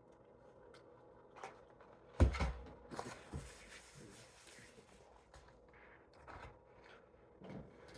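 Eating and food handling at a table: a loud thump about two seconds in, then soft clicks and rustles of food and wrappers being handled.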